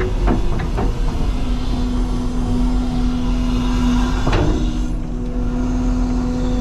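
CAT 323 excavator's diesel engine and hydraulics running steadily, heard from inside the cab: a constant low rumble with a steady hum. A few short knocks come through, twice in the first second and once about four seconds in.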